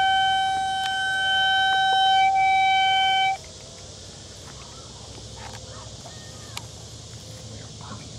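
Hand-held sewer camera locator giving a steady electronic tone, one held note with overtones, as it picks up the signal from the camera head in the pipe; the tone cuts off suddenly about three and a half seconds in, leaving a faint background.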